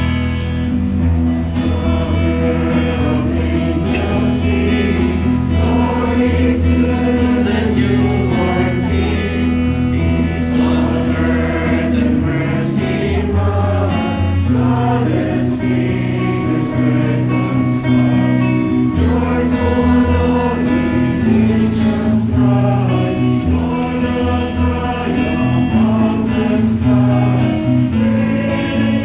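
Church choir singing a hymn to guitar accompaniment, continuous and steady throughout.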